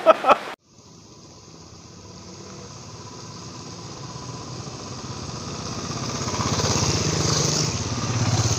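Motorcycles riding on a wet road in the rain, their engines and tyre hiss growing steadily louder as they approach and pass close.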